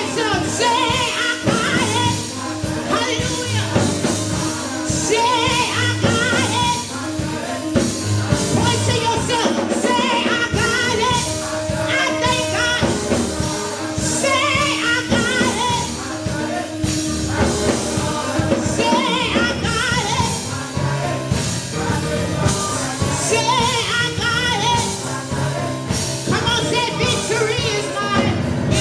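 Gospel music with singing and a steady beat.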